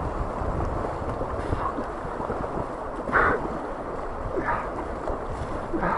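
Fast, shallow river water rushing over rocks around an inflatable boat running a riffle, with wind buffeting the microphone. Three short splashes stand out in the second half.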